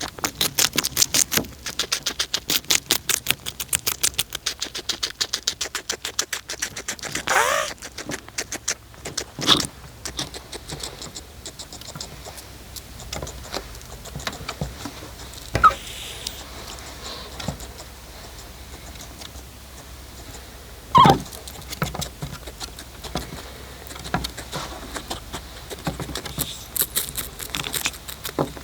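A cat chewing and crunching food in quick, regular bites of about five or six a second. The chewing pauses in the middle, where a few single short sounds stand out, then starts again near the end.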